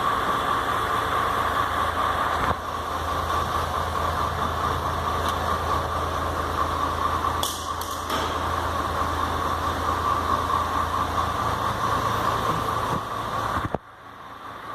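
Diesel truck engine running steadily, then cutting off suddenly near the end.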